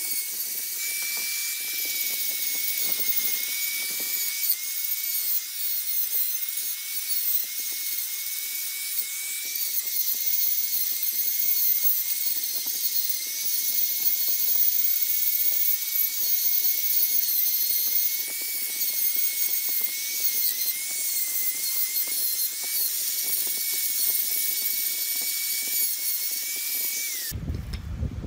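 Handheld electric rotary carving tool grinding into a block of wood: a steady high-pitched motor whine that dips and wavers slightly as the bit bites, cutting off suddenly about a second before the end.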